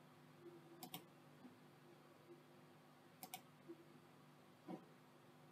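Faint computer mouse clicks over near-silent room tone: a quick pair about a second in, another pair about three seconds in, and a softer click near the end.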